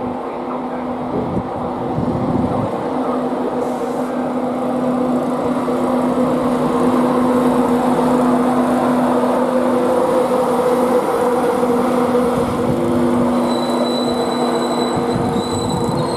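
A train running at the station: a steady hum with a couple of level tones over rail rumble, growing slightly louder, and a faint high whine that joins about thirteen seconds in.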